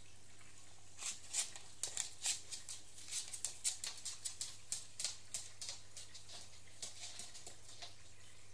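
Macaw gnawing with its beak: an irregular run of sharp clicks and snaps, starting about a second in and dying away shortly before the end, over a low steady aquarium hum.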